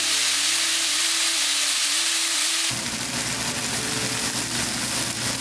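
Seasoned chicken breast cubes sizzling in a hot non-stick frying pan. About two and a half seconds in, the sound changes to another pan frying sliced zucchini and cherry tomatoes, with a rougher, fuller sizzle.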